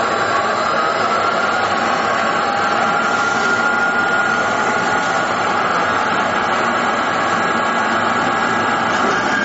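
Verkon PAB-350 vertical two-spindle machine running steadily: a constant mechanical noise with a thin, steady high whine.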